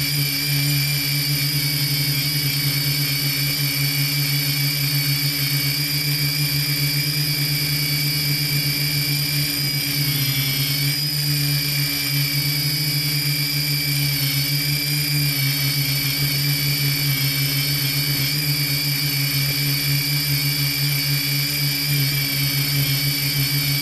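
Quadcopter drone's motors and propellers running with a steady, high buzzing whine, the pitch shifting briefly about ten seconds in as it manoeuvres.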